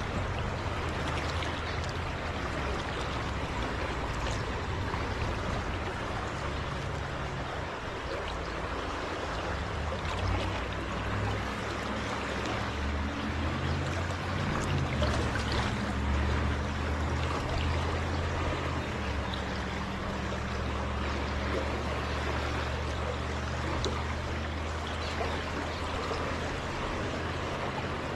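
River current rushing steadily past the wading angler, with a low hum underneath through much of the middle of the stretch.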